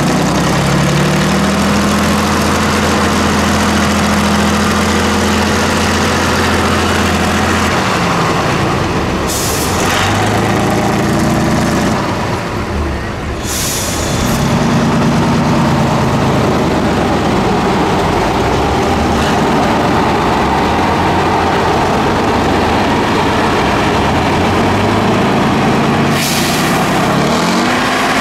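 Tatra 8x8 off-road truck's air-cooled diesel engine revving hard under load in mud. Its pitch climbs, holds for several seconds and falls away, several times over. Short hisses of air brakes come between the revs.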